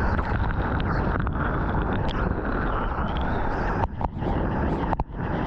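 Rushing whitewater and spray from a breaking wave, with wind buffeting the action camera's microphone, as a surfer rides into the wave's lip. The rush cuts out briefly twice, about four and five seconds in.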